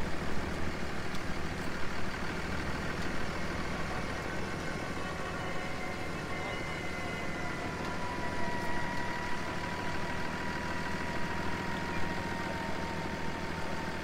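Truck engines running steadily under load during a rope pull to free a pickup stuck in lake mud, with a thin whine that slowly falls in pitch over the second half.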